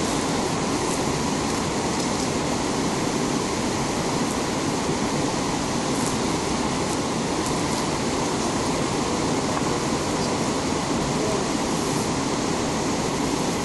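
River rapids rushing: a steady, unbroken roar of whitewater.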